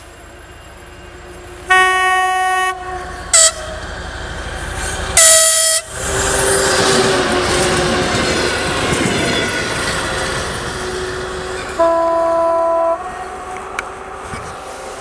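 TEP70 diesel locomotive sounding its horn as it approaches: a long blast, a short one, then a higher-pitched blast. It then passes close by with a loud rush of diesel engine and wheels on the rails that slowly fades. Another horn blast comes near the end.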